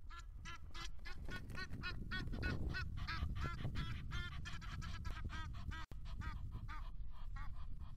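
Egyptian geese honking in a fast, excited run of about three to four calls a second: territorial calls as they attack a white stork on their nest. A steady low rumble sits underneath.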